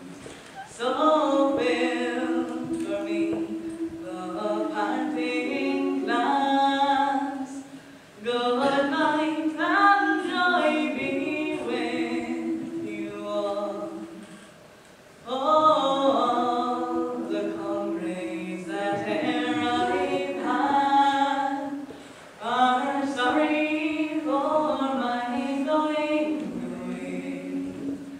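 Girls' choir singing a cappella in parts, in four long phrases with brief pauses between them about every seven seconds.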